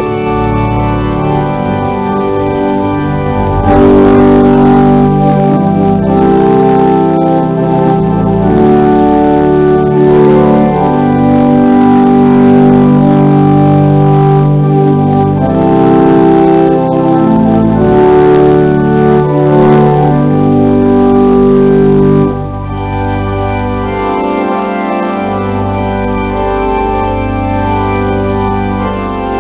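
The cathedral's pipe organ playing held, changing chords. It grows louder about four seconds in and drops suddenly to a quieter level about two-thirds of the way through.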